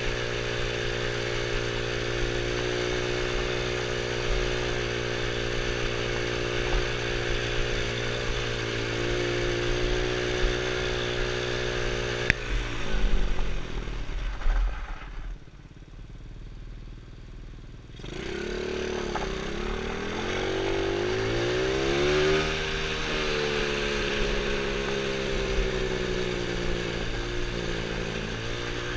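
The 110cc quad's small single-cylinder engine runs at a steady speed under throttle. About twelve seconds in the throttle closes, the pitch falls and the engine settles to a quieter low idle for a few seconds. It then revs back up in a rising whine and pulls steadily again. A steady hiss sits over the engine and fades while it idles.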